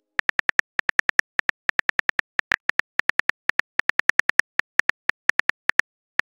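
Phone keyboard clicks as a text message is typed: a fast, uneven run of short ticks, about six or seven a second, stopping just before the end.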